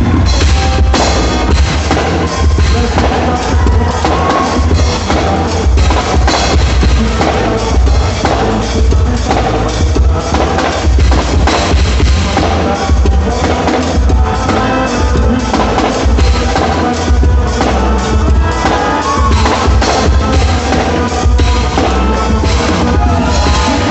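Loud forró-style quadrilha junina music with a driving drum-kit beat and heavy bass drum, without vocals.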